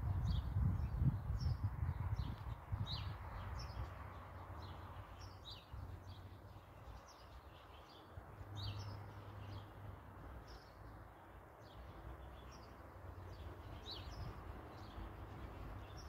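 Small birds chirping, short high chirps about once a second throughout, over a low rumble that is loudest in the first three seconds.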